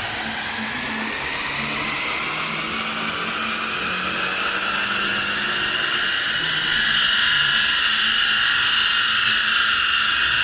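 Infiniti Q50 2.0T running on a chassis dynamometer: a high whine rises steadily in pitch for about seven seconds, then holds level.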